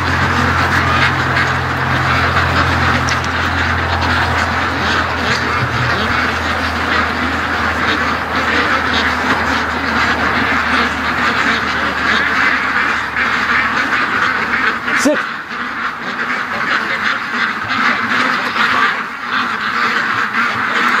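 A large flock of domestic ducks quacking together in a dense, continuous chorus.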